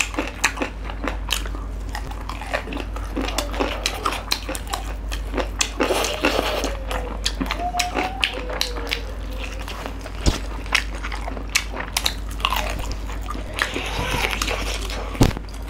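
Close-miked eating of chicken-curry legs by hand: steady chewing and biting, with many wet mouth clicks and smacks.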